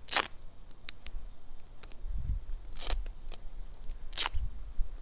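Tape being pulled off a roll and torn into strips: three short rips, one right at the start, one about three seconds in and one about four seconds in, with light handling rustle between.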